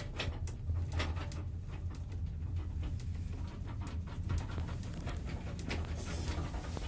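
Old Zremb lift car travelling between floors: a steady low hum from the drive with irregular clicks and rattles over it.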